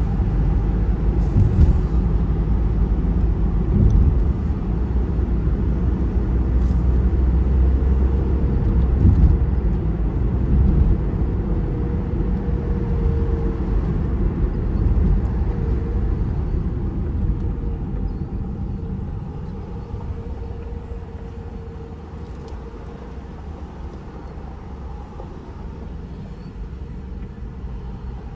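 Car driving on a city street: steady low road and engine rumble with a few short bumps, growing quieter about two-thirds of the way through.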